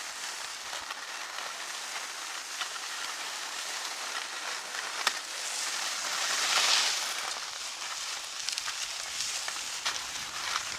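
Skis hissing and scraping over groomed snow, swelling louder a little past halfway, with a few sharp clicks along the way.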